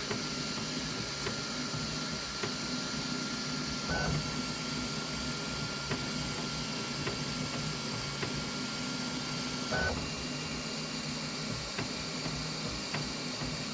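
Flashforge Adventurer 5M Pro 3D printer running its automatic bed-levelling check: a steady hum of fans and stepper motors. A thin high whine starts with a brief sound about four seconds in and stops with another near ten seconds.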